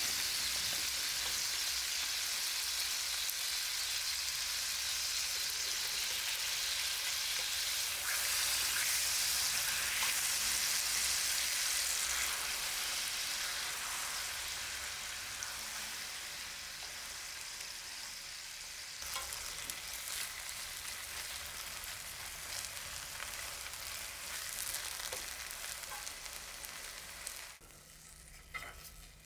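Food sizzling in a frying pan, a steady hiss that slowly weakens through the second half and dies down sharply near the end, followed by a few light clicks.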